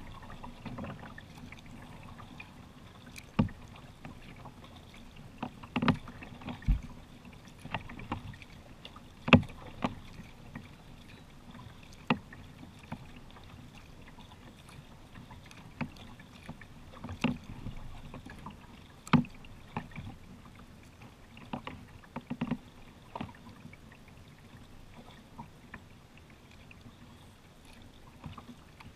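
Kayak being paddled on calm river water: sharp, irregular paddle strokes a couple of seconds apart over a low, steady wash of water.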